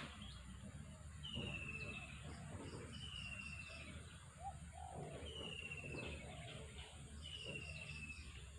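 Birds calling: a short, high whistle sliding down in pitch, repeated four times about two seconds apart, with brief runs of quick higher notes between.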